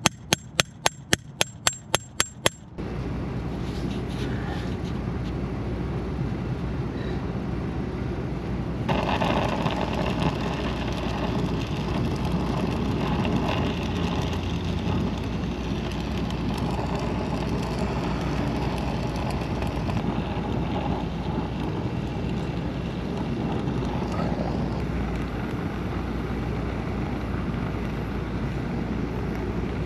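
A quick run of about a dozen sharp clicks, then a brazing torch burning with a steady roar while copper refrigerant line joints are brazed. The roar gets louder and brighter about nine seconds in.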